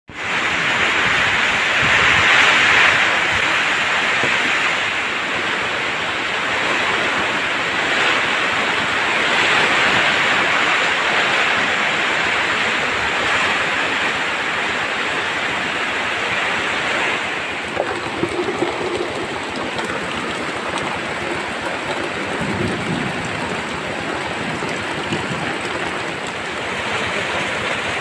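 Heavy rain pouring steadily onto forest trees and leaves, driven by wind, a dense hiss that swells and eases, growing a little quieter about two-thirds of the way through.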